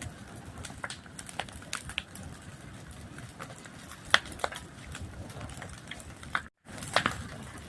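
Wood fire crackling, with irregular sharp pops and snaps over a low steady rush; one pop about four seconds in is the loudest. The sound cuts out for a split second about six and a half seconds in, then resumes.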